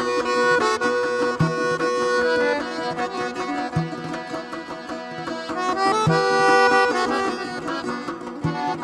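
Instrumental music with long held notes and a low beat about every two and a half seconds.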